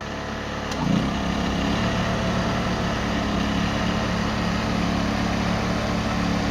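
A small engine running steadily with an even rapid firing pulse, picking up slightly about a second in.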